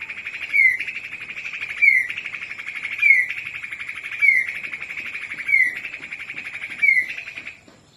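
White-rumped shama (murai batu, Medan type) singing the same phrase over and over, about six times: a fast buzzy trill, each time ending in a sharp downslurred note.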